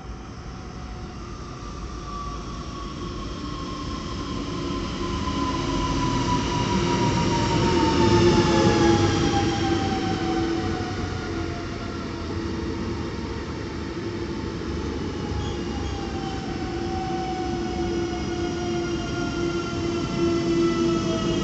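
Newag Impuls (45WEa) electric multiple unit pulling in alongside the platform and braking. Its motor whine falls steadily in pitch as it slows. The sound is loudest as the front passes, about 8 seconds in.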